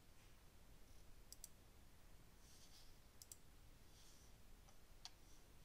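Faint computer mouse clicks over quiet room tone: a quick pair about a second in, another pair around three seconds, and a single click near the end.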